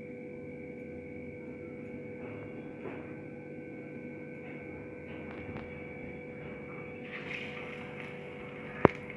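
Steady electrical hum throughout. About seven seconds in, oil starts sizzling as a breadcrumb-coated vegetable Manchurian ball goes into the hot oil for deep-frying. A single sharp click comes near the end.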